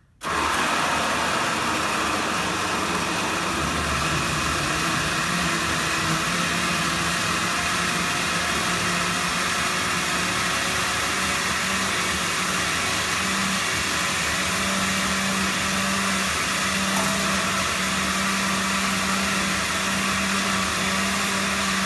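Countertop blender on its liquefy setting, grinding soaked almonds and water into almond milk. The motor starts abruptly and runs steadily and really loud, its hum stepping up slightly in pitch a few seconds in.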